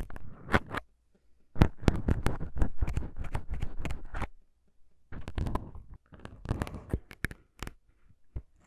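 Plastic disposable syringes worked close to the microphones: plungers rubbing and clicking in their barrels, giving rapid clicks and scratchy rubbing in several bursts with short pauses, the clicks sparser near the end.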